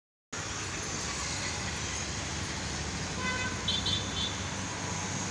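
Steady road-traffic noise, and about three seconds in a short electronic chime of a few high notes: the attention signal before the platform's automated announcement of an arriving tram.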